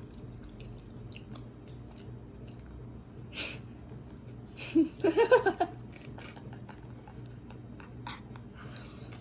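A person chewing food with the mouth close to the microphone, with soft wet clicks and smacks throughout. About five seconds in there is a brief, louder vocal sound with a wavering pitch, like a short hum or laugh.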